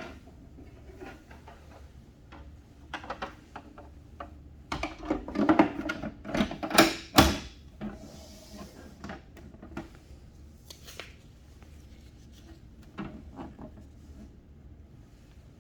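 Brother Charger 11 manual typewriter being handled: scattered mechanical clicks and knocks, with a run of loud knocks about five to seven seconds in and a short rustle after it.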